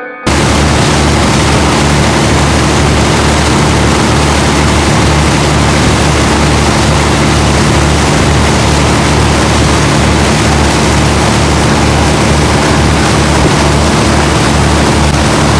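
A motor engine running steadily at close range, a low drone with a constant rushing noise over it, starting abruptly.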